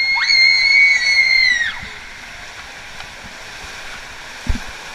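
Two girls screaming together in long high-pitched squeals for about a second and a half while sliding down an enclosed water-slide tube, then the steady rush of water along the tube with a short bump near the end.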